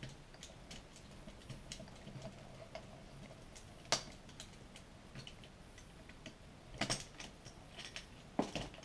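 Small metal clicks and taps of a screwdriver and screws being worked out of the clutch arm cover on a 66cc two-stroke bicycle engine's crankcase. One sharper knock comes about four seconds in, and quick runs of clinks come near seven seconds and near the end.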